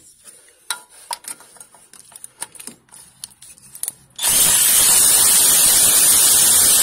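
Light clicks and knocks as a cordless electric ratchet is fitted onto a bolt head, then about four seconds in its motor starts and runs steadily, undoing the bolt.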